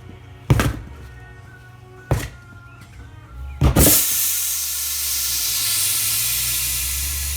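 Brake-cleaner fumes ignited inside an ATV tire: a couple of sharp knocks, then a loud pop about three and a half seconds in as the bead seats on the rim, followed by a steady hiss of hot gas and steam escaping. Background music plays underneath.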